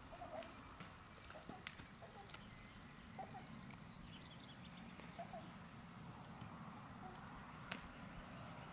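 Faint, scattered knocks and clicks of a donkey's hooves shifting on wooden boards, with a few faint bird chirps.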